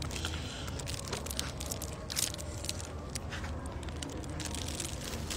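Irregular crinkling and crackling of a plastic bag and cup holding an iced drink, handled close to the microphone, with one louder crackle about two seconds in.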